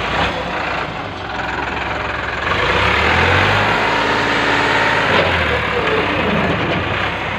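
Farmtrac 45 tractor's three-cylinder diesel engine working under heavy load, straining to pull a firewood-laden trolley out of deep mud. It revs up about two and a half seconds in, holds higher until about five seconds, then eases back.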